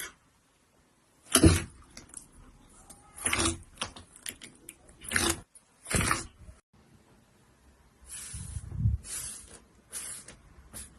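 Slime being squished and pressed, making a series of short wet squelches and pops at irregular intervals.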